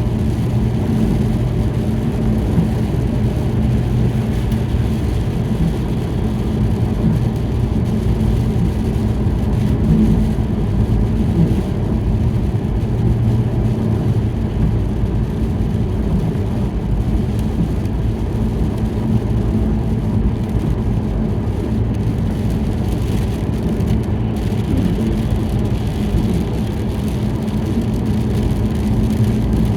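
Steady road and engine noise inside a moving car's cabin, a low rumble with a constant hum, its tires running on a wet road.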